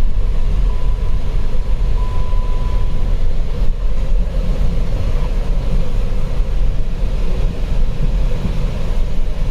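Cabin noise inside a 2010 Chrysler Sebring convertible on the move: a steady low rumble of road and 2.7 L V6 engine noise. A thin, faint high tone comes and goes during the first three seconds.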